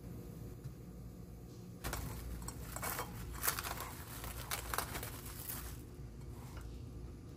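Plastic cling wrap crinkling and rustling as it is peeled off a bowl, in a run of rustles from about two seconds in until near six seconds.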